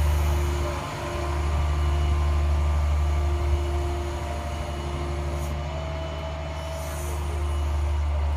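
Engine of a 1990 International bucket truck running steadily, with a low hum and a faint steady whine, while the Reach-All's hydraulic boom raises the bucket.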